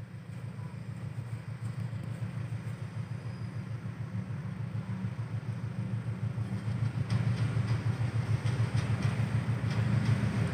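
GE C20EMP (CC 206) diesel-electric locomotive approaching at the head of a passenger train, its diesel engine a low, steady drone that grows louder as it nears. About two-thirds in, wheel and rail clatter joins.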